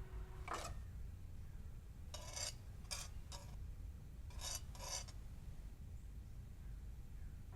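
Kitchen utensil scraping: one short scrape about half a second in, then a run of about five short scrapes in the middle.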